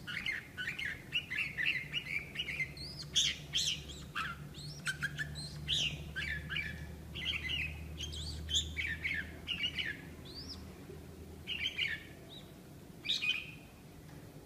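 Red-whiskered bulbul singing in quick, varied chirps and warbles, with calls of a male in wing-spreading courtship display. The song thins out after about ten seconds, with one last short burst near the end.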